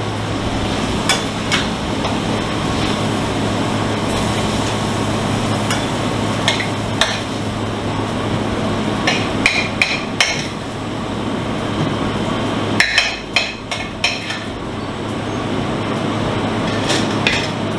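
Steady roar of a commercial kitchen's range and ventilation with a low hum, broken by scattered sharp metal clanks of a serving spoon against a steel pan, with a quick run of them about thirteen seconds in.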